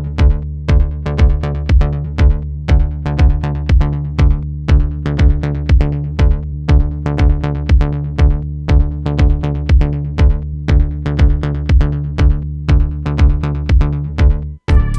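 Electronic background music: a steady beat of about two hits a second over a sustained bass line, briefly cutting out near the end.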